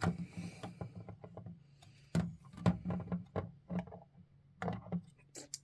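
Hard plastic toy parts clicking and knocking as a turret cannon is pushed and worked into its mount on a Transformers Rodimus Prime trailer by hand: a run of short, separate clicks and taps.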